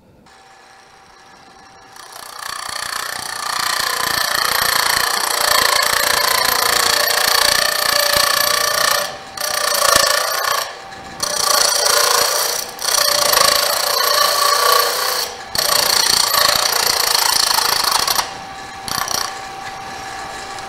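Small wood lathe spinning a mesquite duck-call blank on a mandrel while a turning tool cuts it. A faint steady motor whine comes on first, then about two seconds in a loud cutting noise starts and runs on, breaking off briefly about five times as the tool leaves the wood.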